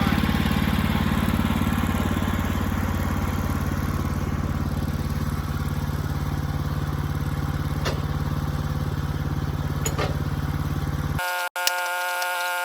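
An engine idling steadily, with a couple of faint clicks. About eleven seconds in, it cuts off abruptly and a steady chord of held tones takes over.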